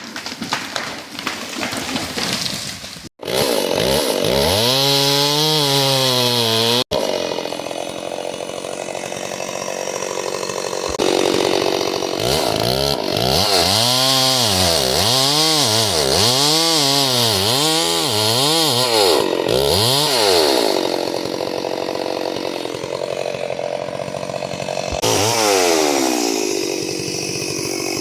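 Two-stroke chainsaw cutting into a big dead tree, its engine revving up and dropping back again and again, about once a second through the middle stretch. The sound cuts out abruptly twice near the start.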